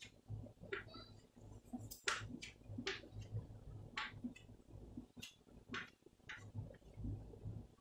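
Chalk writing on a blackboard: a string of short, scratchy chalk strokes and taps, unevenly spaced.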